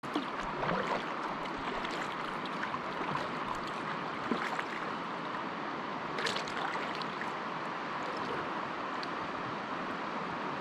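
Steady rush of flowing river water, with scattered light ticks through it.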